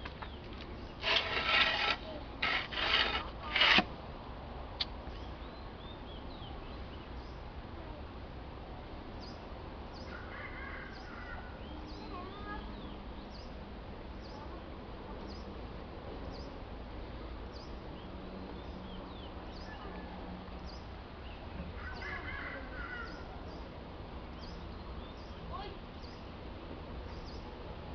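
Faint outdoor background noise with a few short scraping rustles in the first few seconds, then soft high chirps repeating about once a second.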